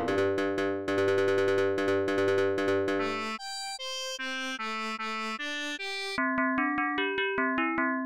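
Chiptune synthesizer music played back from the BeepBox web editor: fast repeated notes over a low drone, then about three seconds of held, brighter tones, then short plucked notes with sharp clicks about five a second.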